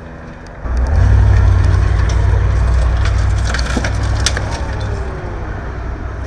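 A tow truck's engine and hydraulics start up loud about a second in and run on as a low drone. A few sharp cracks and crunches, like splintering debris, come near the middle.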